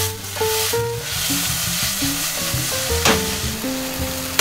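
Chicken and leafy greens sizzling in a wok over a gas flame as the wok is tossed and stirred, with a sharp knock about three seconds in. Light background music with stepped notes plays under it.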